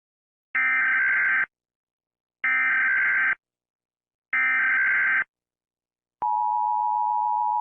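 Emergency Alert System SAME header: three identical one-second bursts of warbling data tones, evenly spaced, then the steady two-tone EAS attention signal starting about six seconds in and still sounding at the end. Together they announce the start of an emergency alert broadcast.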